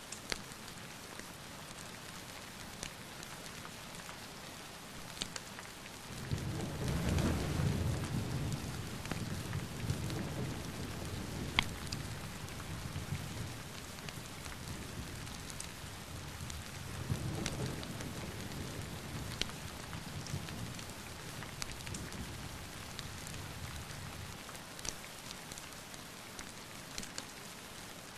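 Steady rain falling, with scattered sharp drop ticks. Thunder rolls in about six seconds in and rumbles for several seconds before fading, and a second, weaker roll follows a little later.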